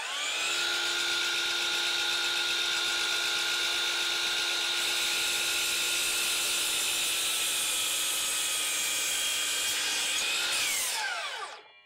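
Battery-powered DeWalt FlexVolt 12-inch sliding miter saw with a brushless motor and a 60-tooth blade spinning up with a rising whine, running steadily while the blade cuts down through a treated 4x6 post, then winding down quickly near the end.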